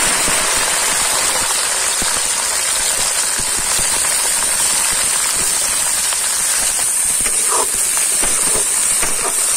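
Moringa drumstick pieces and sliced potatoes sizzling in hot mustard oil in a kadhai: a loud, steady frying hiss. A few light clicks of a spatula stirring come near the end.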